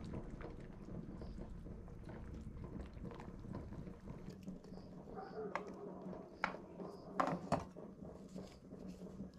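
Pot of beef broth simmering with a low, steady bubbling. Then a cooked piece of beef is set on a bamboo cutting board, with a few sharp knocks of the tongs against the wood between about five and eight seconds in.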